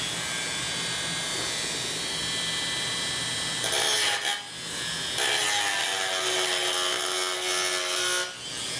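Dremel rotary tool with a fiberglass-reinforced cutoff wheel running at high speed with a steady whine, grinding against the metal base of a model-railroad track frog to rough up the surface for soldering. The grinding comes in briefly about three and a half seconds in, then again for about three seconds from five seconds in, and the tool winds down near the end.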